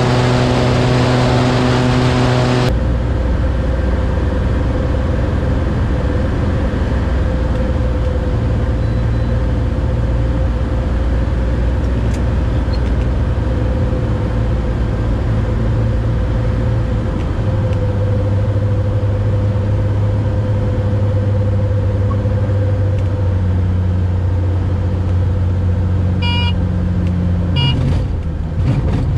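Cessna 180's six-cylinder Continental O-470 engine and propeller running with a steady drone on approach. At first loud wind rush from outside the aircraft is mixed in; after that the drone is heard from inside the cabin. The engine note drops a little about two-thirds through as power comes back, and a few clatters near the end come as the wheels touch down on the dirt strip.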